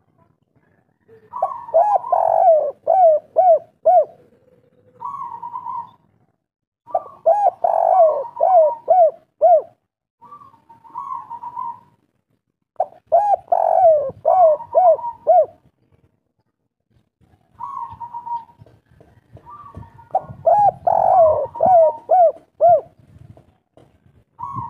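Spotted dove (derkuku) cooing the local 'kuk 3' song: four phrases, each a quick run of about five short rounded coos. Softer single coos come between the phrases.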